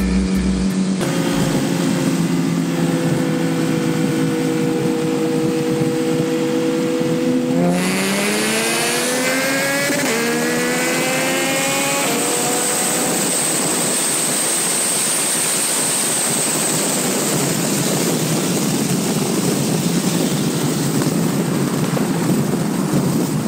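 Engines of a Porsche 911 Turbo S and two sport motorcycles in a highway roll race. They drone steadily at cruising speed, then from about eight seconds in rev hard, rising in pitch through two upshifts. The rev climb then gives way to a loud, steady rush of engine and wind noise at speed.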